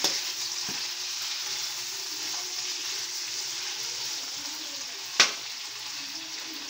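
Cubed pork and potatoes sizzling in hot oil while a spatula stirs them in the pan, a steady hiss. The spatula clacks sharply against the pan once about five seconds in.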